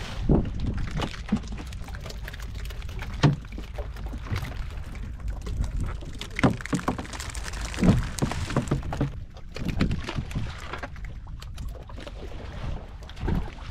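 Sea water slapping and pouring against the hull of a small fishing boat over a steady low rumble, with scattered knocks and thuds as mackerel on a hand line are swung aboard and land on the deck.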